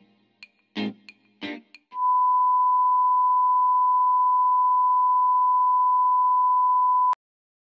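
A few plucked guitar notes of background music, then about two seconds in a steady single-pitched electronic beep that holds for about five seconds and cuts off suddenly.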